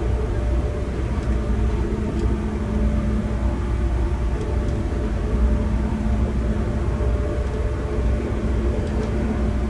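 Passenger train running at speed, heard from inside the carriage: a steady low rumble with a faint steady hum over it and a few light clicks.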